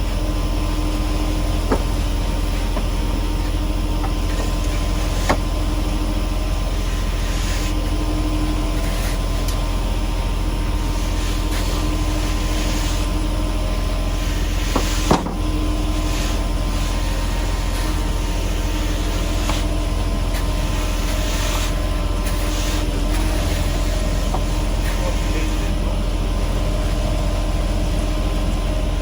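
Concrete mixer truck's diesel engine running steadily while concrete is poured, with a few short knocks.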